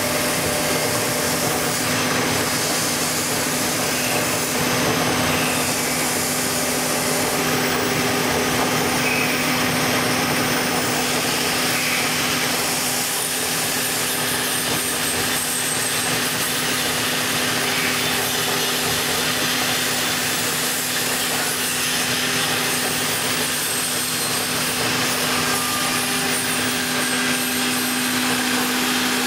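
CNC router spindle milling a cylindrical workpiece turned on a rotary axis: a steady motor hum with a constant cutting hiss, unchanging throughout.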